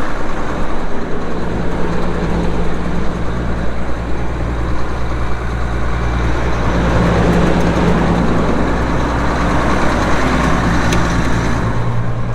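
A vehicle engine running steadily at an even speed, a constant low drone with a noisy wash over it.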